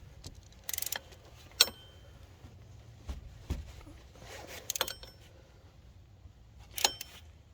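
Scattered metallic clicks and clinks from a hand ratchet and socket snugging bracket bolts, with short runs of clicks about a second in and near the five-second mark and a sharp ringing clink just before two seconds.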